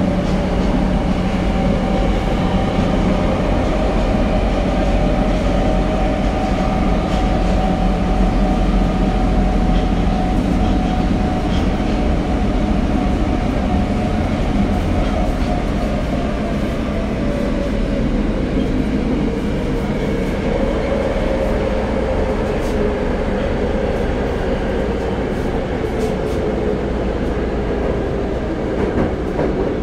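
Interior running sound of a Tokyo Metro 02 series subway car: a steady rumble of wheels on rail with a motor whine. In the second half the whine falls in pitch as the train slows.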